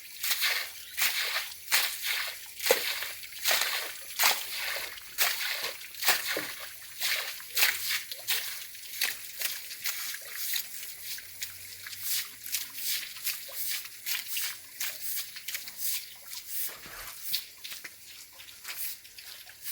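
Water sloshing and splashing in quick, repeated strokes.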